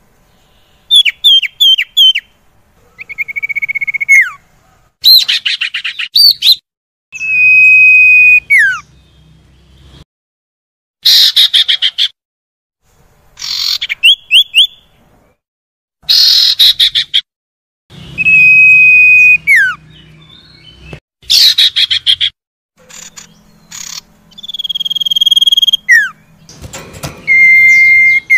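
Recorded common iora (sirtu) calls: clusters of quick chirps, long high whistles that drop sharply at the end, and fast trills, with short silences between phrases. It is a lure track for stirring a quiet caged iora into song.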